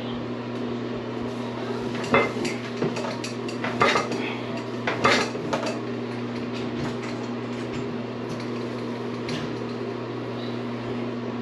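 Small hard objects clinking and knocking as they are handled, with the sharpest knocks about two, four and five seconds in and lighter clicks after, over a steady low hum.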